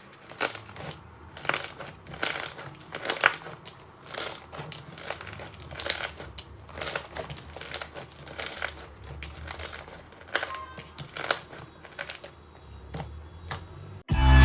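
Slime being squeezed and pressed by hand, making short crackling bursts about once or twice a second. Loud music starts abruptly near the end.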